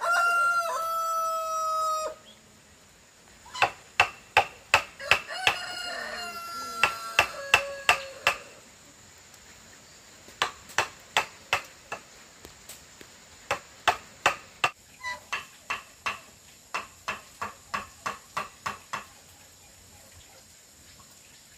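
A rooster crowing, one long call in the first two seconds and a second call a few seconds later. Runs of sharp knocks, about two or three a second, are the loudest sounds.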